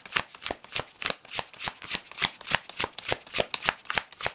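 A tarot deck being shuffled by hand, a steady run of crisp card slaps about three a second.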